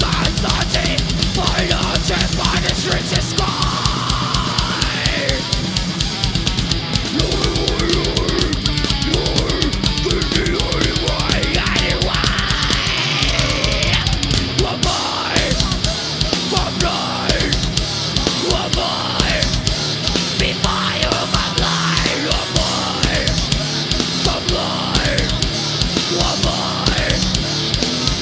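Groove metal band playing live: distorted electric guitars and bass over a drum kit, with a fast, steady bass-drum beat.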